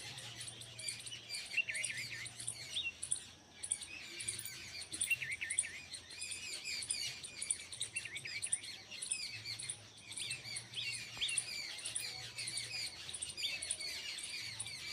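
Morning chorus of many small birds singing at once: a dense stream of short, high chirps and trills overlapping without a break.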